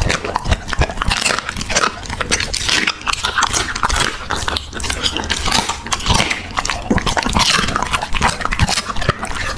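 A dog eating a raw chicken drumstick right up against a microphone: quick, irregular wet chewing and lip-smacking, with licking at the wooden board.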